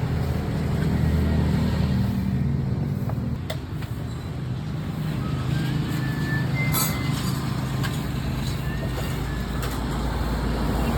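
Yamaha Mio Aerox V1 scooter's single-cylinder engine running steadily, back in life after its fuel pump's broken terminals were resoldered. There are a few light clicks and a brief high tone about two-thirds of the way in.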